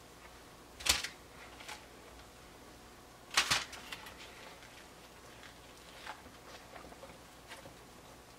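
Light kitchen handling noises as baked egg bites are pried out of a silicone muffin mold by hand and set down on a parchment-lined baking tray, with faint clicks and two brief louder rustling knocks about a second and three and a half seconds in.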